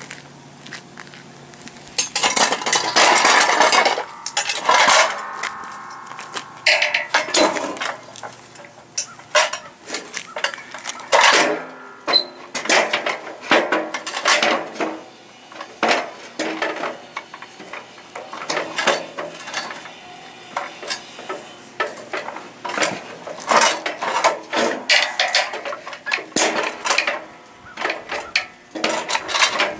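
Metal boat-hoist frame parts clanking and knocking together as a beam is fitted to a post joint, with irregular metallic clinks and rattles, densest a couple of seconds in.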